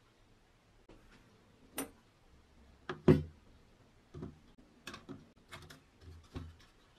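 Small rusty metal toy parts clicking and tapping against the wooden bench and each other as they are picked up by a gloved hand: an uneven series of about ten sharp clicks, the loudest about three seconds in.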